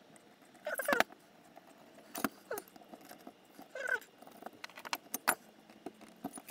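Small screws and aluminium servo brackets clinking, clicking and scraping as they are handled and a screw is fitted, with short scraping squeaks about a second, two seconds and four seconds in and a run of quick clicks around five seconds.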